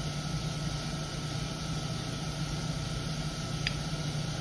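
Steady hum and hiss of boiler-room machinery running, with a thin steady whine above the hum. A single faint tick about three and a half seconds in.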